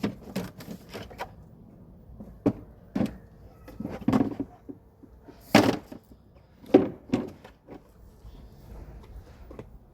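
Hard plastic parts of a Greenstalk vertical planter being handled: a string of separate knocks and clatters as clips and tiers are picked up and moved, the loudest about halfway through.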